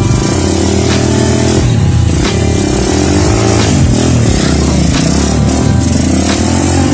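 Motorcycle engine running under load, its pitch rising and falling as the throttle opens and closes.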